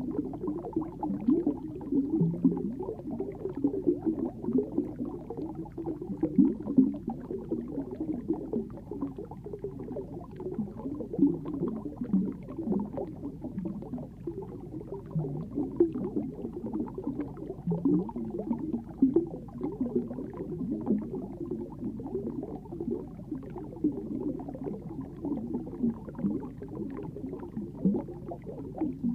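Muffled underwater ambience picked up by a submerged camera: continuous, irregular low-pitched bubbling and gurgling of water, with nothing high-pitched.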